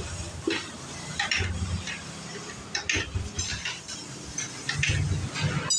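Irregular metallic clinks and knocks of motorcycle engine parts being handled and set down while a Kawasaki KLX 150 engine is taken apart, with a sharper click near the end.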